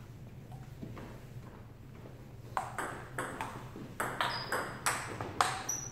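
Table tennis rally: the celluloid-type ball clicking sharply off paddles and bouncing on the table. Faint ticks at first, then from about two and a half seconds in, a quick run of crisp hits, about two to three a second, some with a short ringing ping.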